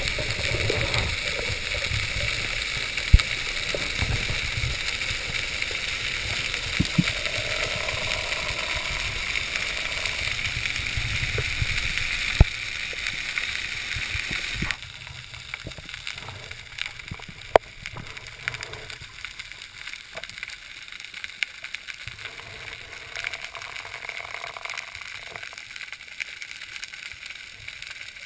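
Water noise heard on a camera submerged during a freedive: a steady rushing with a few sharp clicks, dropping suddenly about halfway through to a quieter underwater hiss with scattered clicks.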